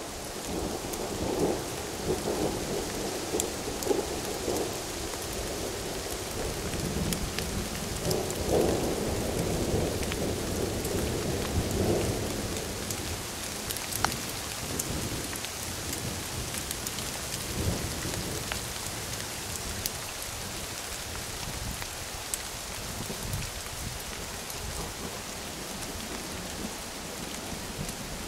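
Steady rain falling with rolling rumbles of thunder, the rumbles strongest in the first half.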